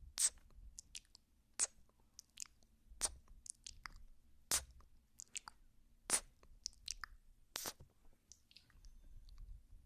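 Close-up ASMR mouth sounds: quiet wet kissing and ear-nibbling clicks and smacks, sharp and irregular, about one or two a second.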